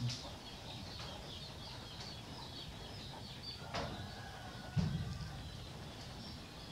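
Small birds chirping over and over in the background. There is a sharp click a little before four seconds in and a soft low thump about a second later.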